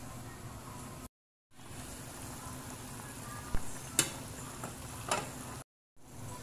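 Meatball and potato stew boiling in a pot: a steady bubbling sizzle. A few sharp clicks come past the middle, and the sound cuts out briefly twice.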